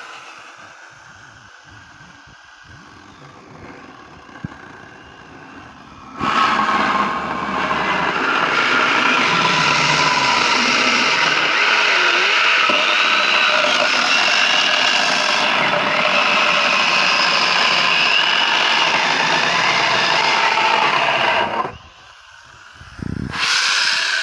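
Hitachi electric angle grinder fitted with a chainsaw attachment, starting about six seconds in and running steadily for about fifteen seconds as its chain saws through a birch bar. It stops, then starts again near the end.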